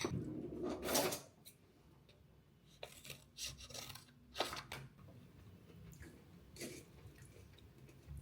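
Light handling sounds: a rustling burst in the first second, then scattered soft clicks and taps.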